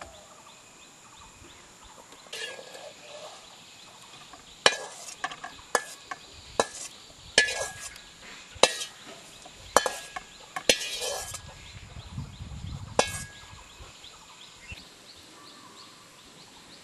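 A steel bowl and spoon clinking against a ceramic bowl as whole green chillies are tipped into it. There is a string of sharp clinks and taps over several seconds, with a short rattle in the middle.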